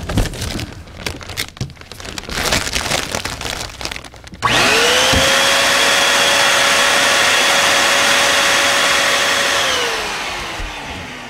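Foil balloon crinkling as it is handled, then an electric Foil Pro foil-balloon inflator starts abruptly about four seconds in, blowing air into the balloon with a steady motor hum and whine. It cuts off on its own after about five seconds, when the balloon is full and back pressure stops it, and the motor spins down with falling pitch.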